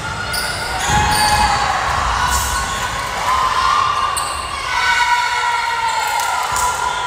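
Indoor volleyball rally in a reverberant gym: the ball is smacked a few times, among sharp impacts and sneaker squeaks on the hardwood floor, while players shout calls to each other.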